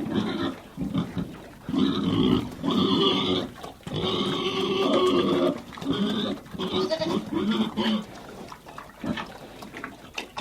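Sheep bleating in a series of long, pitched calls, with pigs grunting among them.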